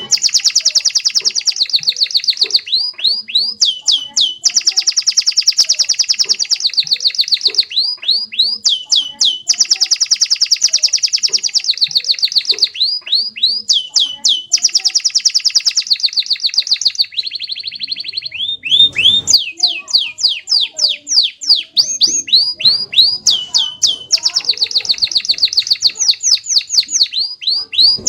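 Domestic canary singing continuously: long rolling trills of very fast repeated notes alternate with runs of separate downward-sliding whistled notes.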